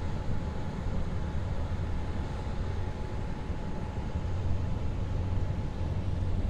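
Large cruise ship Marina passing close by under way: a steady low rumble with a faint steady hum above it.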